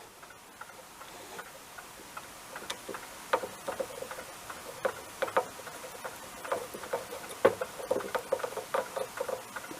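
Small tools clicking and tapping irregularly against a circuit board: light, scattered ticks while a tiny blown surface-mount fuse is worked loose so it can be bridged.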